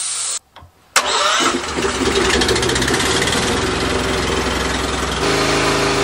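A steady noise cuts off. About a second later an engine cranks, catches and settles into steady running, its note changing about five seconds in.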